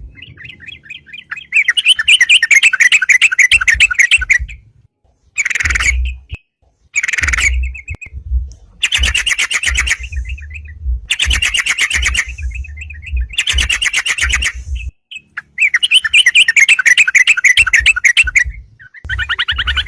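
Yellow-vented bulbul (crucukan) singing energetically: rapid chattering phrases of quickly repeated notes, each one to two seconds long, coming in a string of bursts with short pauses between them.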